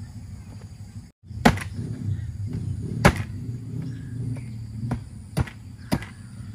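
Meat cleaver chopping wild boar ribs into small pieces on a cutting board: five sharp chops, irregularly spaced, with the sound dropping out briefly about a second in.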